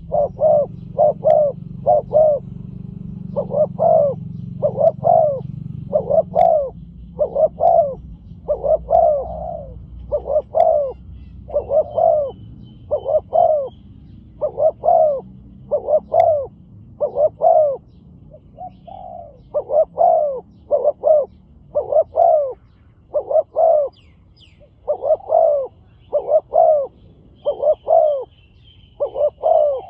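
Spotted doves cooing one series after another, each series two to four deep coos of the 'khu-ang' type, with a low rumble under the first several seconds.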